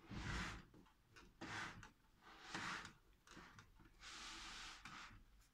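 Faint breathing: short soft hissy breaths about one a second, with a few light clicks of handling.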